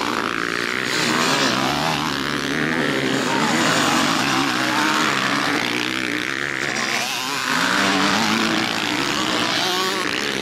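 Several motocross bikes revving hard through a dirt corner, one after another. Their engines overlap and rise and fall in pitch as the riders get on and off the throttle.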